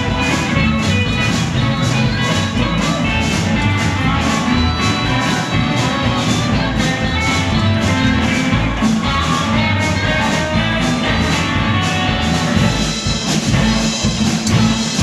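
Live rockabilly band playing an instrumental stretch with electric guitar to the fore over a steady beat, about three beats a second.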